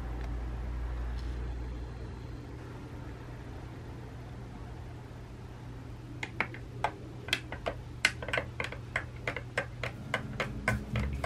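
A metal spoon stirring milky coffee in a glass mug, clinking against the glass about four times a second from about six seconds in. A low steady hum lies underneath.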